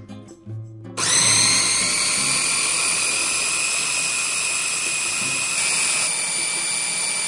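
A small electric kitchen motor, a blender or hand mixer, switched on about a second in and running at one steady speed with a high whine, then cut off near the end. It is most likely mixing the oats, eggs and Greek yogurt into a batter.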